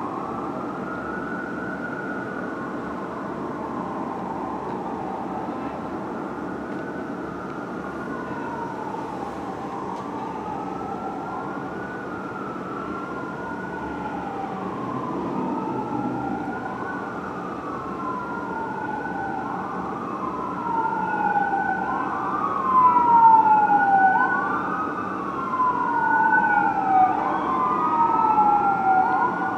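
A 2007 Spartan Gladiator fire engine's siren sounds a wail, rising and falling about every two and a half seconds, while the engine runs code 3 to an emergency call. The wail grows louder in the last third as the engine comes closer, over a steady hum of city traffic.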